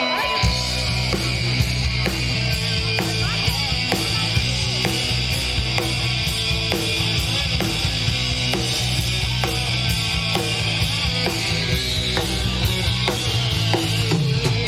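Live punk rock band playing the instrumental intro of a song, with bass and drums coming in about half a second in and then a steady driving beat under loud guitars and cymbals.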